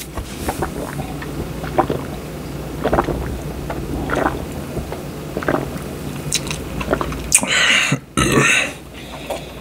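A man gulping beer from a glass in repeated swallows, roughly one a second, then a louder breathy rush near the end as the glass comes down.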